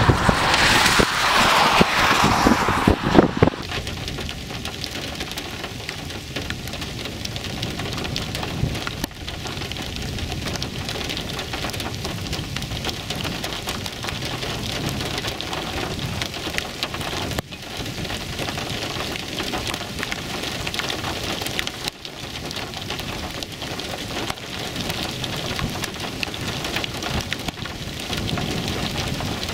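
Wind buffeting the microphone for the first few seconds, then steady thunderstorm rain pattering, with a constant hiss dotted with fine drop ticks.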